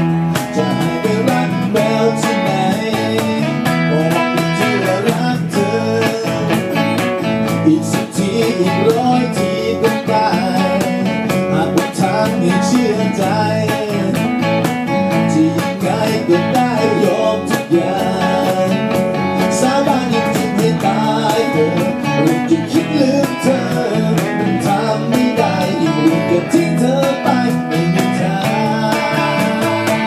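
Live acoustic band playing: strummed acoustic guitars and a cajon keeping the beat, with a man singing lead into a microphone.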